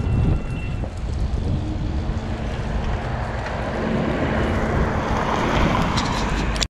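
Wind buffeting the microphone of a moving bicycle, a dense rumble mixed with the hiss of the street. A faint steady hum runs through the middle, a few clicks come near the end, and the sound cuts out abruptly at the very end.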